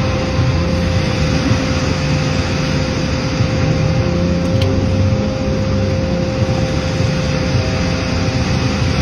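Sawmill running steadily while it rips through a cherry log: constant engine and blade noise with a steady whine over it.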